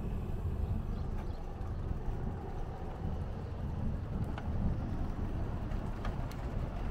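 Riding bicycle heard from its handlebar: a steady low rumble of tyres rolling on the road mixed with wind on the microphone, with a few faint clicks and rattles from the bike.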